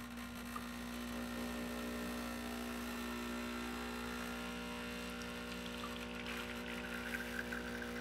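Breville Bambino's vibratory pump humming steadily while pulling an espresso shot through a pressurized portafilter. About six seconds in, a light trickling sputter joins it as espresso starts streaming from the spouts into the shot glasses.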